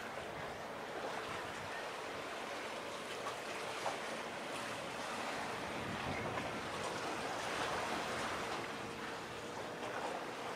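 Steady wash of waves and wind, with a faint steady engine hum from small fishing boats motoring past.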